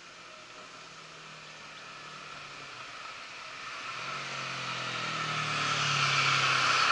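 A car approaching and passing close by. Its engine hum and tyre noise grow steadily louder over the last few seconds, peaking near the end.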